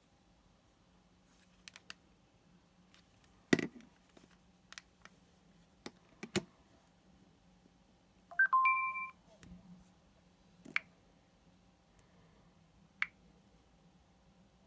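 Scattered taps and clicks from handling an LG Spirit smartphone, with one short electronic beep of two or three quick tones about eight and a half seconds in, over a faint steady hum.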